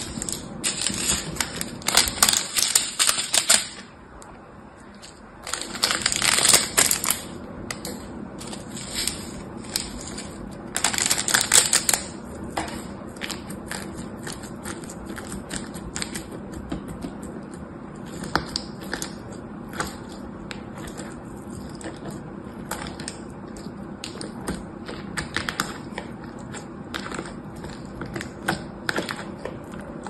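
Blue slime pressed and kneaded into a tub of small foam beads, the beads crackling and popping: dense bursts of crackling near the start, about six seconds in and about eleven seconds in, with scattered single clicks between and after.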